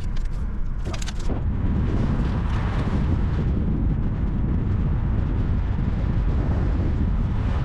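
Steady rumble of a car driving, road and wind noise, with a few short clicks about a second in.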